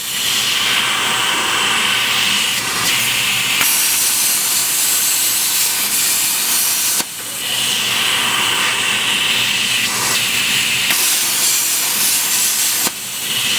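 CNC plasma cutting torch cutting steel, a loud steady hiss of the plasma arc and air jet. It breaks off briefly and restarts about seven seconds in and again near the end.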